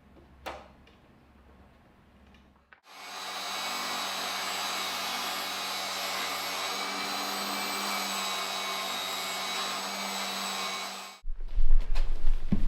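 Electric power tool with its blade guard taken off, its motor running at a steady whine for about eight seconds; it starts abruptly about three seconds in and cuts off suddenly near the end, followed by loud knocks.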